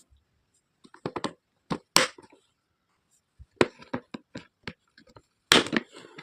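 Hard plastic pieces of a toy doctor kit being handled: sharp clicks and taps in small clusters with short quiet gaps, the loudest clack coming near the end.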